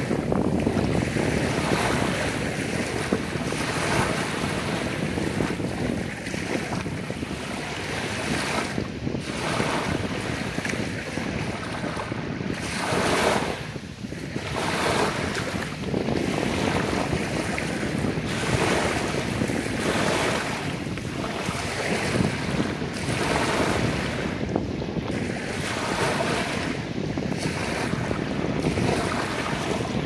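Small, gentle Black Sea waves lapping and washing over a sandy shore in shallow water: a continuous wash that swells and eases every second or two.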